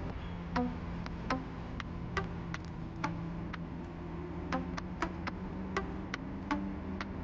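Background music in a quiet passage: steady low held tones with sharp clicking ticks about twice a second.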